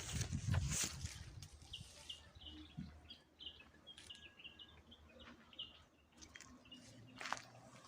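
Small birds chirping: many short, quick calls repeated throughout. A loud rustling thump comes in the first second, and a sharp click comes near the end.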